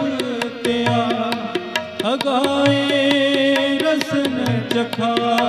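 Sikh kirtan: harmoniums holding sustained chords under steady, regular tabla strokes. About two seconds in, a singer's voice slides up into a long, wavering held note.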